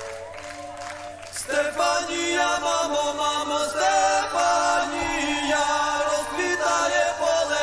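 Ukrainian folk-style song beginning: soft held tones, then about a second and a half in a male voice starts singing the melody over the band.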